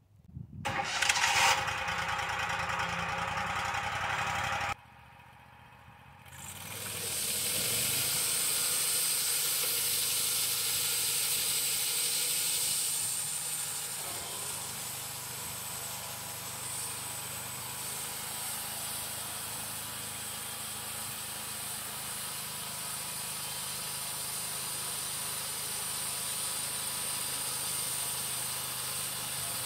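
Wood-Mizer LT35 portable band sawmill running: a steady engine hum under a loud hiss from the band blade. It starts suddenly about half a second in, drops away for a moment around five seconds, then comes back steady from about seven seconds.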